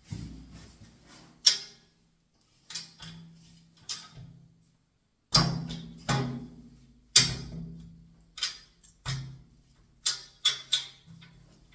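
Steel towel radiator clanking and ringing as it is knocked onto its wall brackets and pushed onto the valve fittings. About a dozen sharp metallic knocks, uneven in spacing, each ringing briefly.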